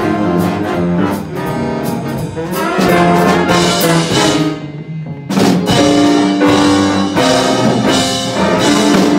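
School big-band jazz ensemble playing live: saxophones, trumpets and trombones over electric guitar. About four seconds in the band thins out briefly, then comes back in together on a sharp accented hit.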